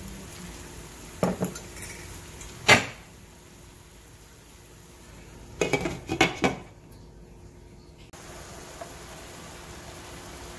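Metal ladle knocking against the frying pan and broth bowl, twice, the second knock about two and a half seconds in the loudest. A glass pan lid clatters onto the nonstick frying pan in a quick cluster of rattles around six seconds in. After a short near-silent gap comes a steady hiss of the pan cooking.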